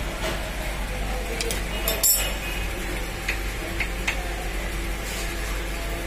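Steady workshop hum with a sharp metallic clank about two seconds in and a few lighter clicks after it, from hand work on a car's front suspension during a wheel alignment.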